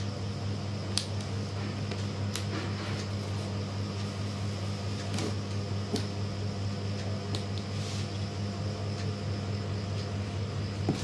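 Steady low mechanical hum, with a few faint clicks and scratches as fingers pick at the packing tape on a cardboard parcel.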